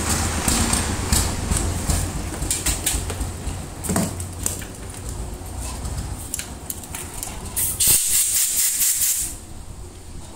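Tools and metal motor parts handled on a workbench, clicking and clinking over a steady low hum. About eight seconds in, a hiss lasting about a second and a half.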